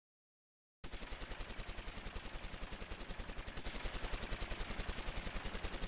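Automatic gunfire: a long, unbroken rattle of rapid, evenly spaced shots that starts about a second in and grows a little louder past the middle.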